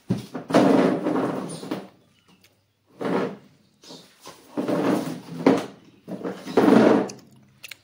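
Bag fabric rustling and scraping close to the microphone in four bursts, as a large backpack worn by a man bending over is shifted about.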